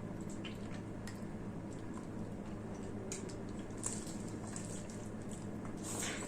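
Close-up wet eating sounds from a person eating rice and mutton curry: moist chewing with scattered smacks and clicks, over a steady low hum.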